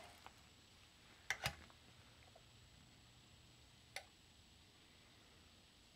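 Metronic FS200 8-inch impulse heat sealer being pressed closed. Two sharp clicks come about a second in as the arm goes down, then a faint low hum while the element heats. A single click at about four seconds marks the heating cycle switching off.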